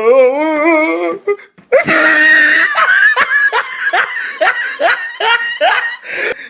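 A man laughing hard in a meme sound effect. It opens with a wavering, drawn-out voice, breaks off briefly, then goes on as rapid repeated bursts of belly laughter.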